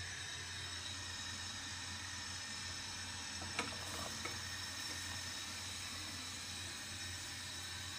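Steady hiss of a pot of water heating toward the boil on a gas hob burner, with two light clicks about three and a half and four seconds in.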